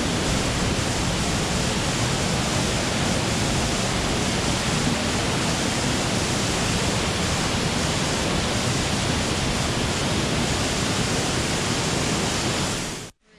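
Steady roar of a waterfall close by, an even rushing of falling water that cuts off suddenly near the end.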